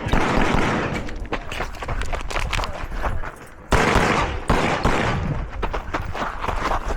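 Competition pistol fire from a 9 mm Canik METE SF: rapid strings of shots fired close together, with a louder burst starting about halfway in.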